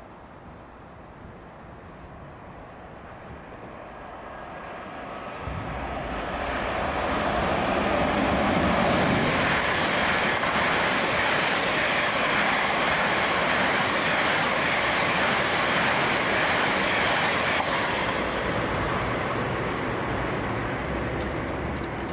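A 15-car London Northwestern Railway Class 730 electric multiple unit (three Aventra units coupled) passing through a station without stopping. Its rush of wheels on rail swells as it approaches, stays steady for about ten seconds as the coaches go by, then eases off near the end as it moves away.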